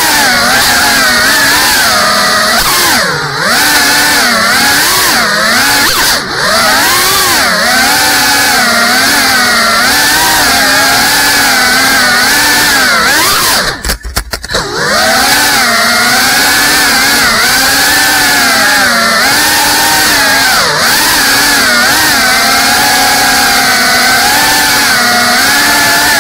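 GEPRC CineLog 35 cinewhoop quadcopter's motors and ducted propellers buzzing loudly, the pitch rising and falling continually with the throttle. Halfway through the buzz drops out for about a second, then picks up again.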